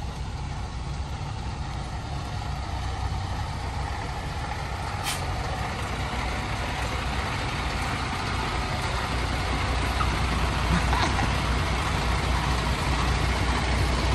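Diesel semi-truck engine running steadily, slowly growing louder, with a brief sharp noise about five seconds in.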